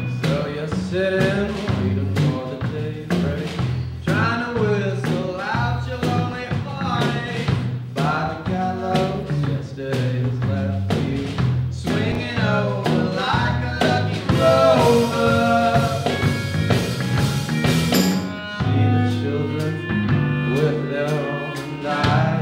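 A band playing a song with a singer, a drum kit keeping a steady beat, and a bass line under it.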